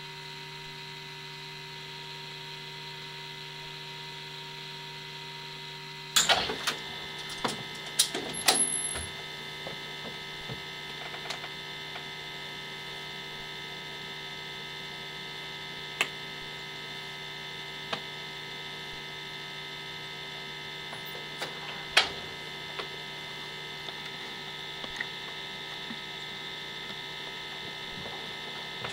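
Steady electrical hum with a faint high whine, broken by a cluster of sharp clicks about six seconds in and a few single clicks later.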